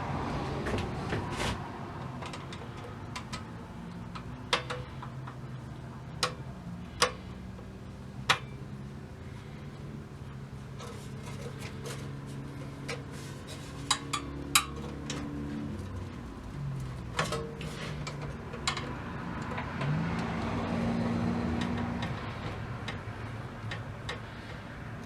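Sporadic sharp clicks and taps of a small screwdriver and radio parts being handled on a workbench, with a knob's set screw being worked loose. A steady low hum runs underneath and rises in pitch briefly twice in the second half.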